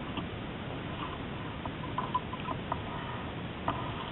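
Steady rush of wind and water aboard a small sailboat under way, with scattered small clicks and squeaks, several in the middle and one near the end.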